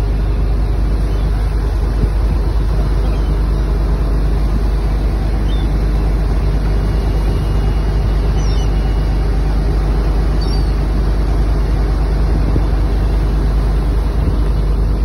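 Steady drone of a fishing boat's engine under way, with water rushing along the hull and through its wake.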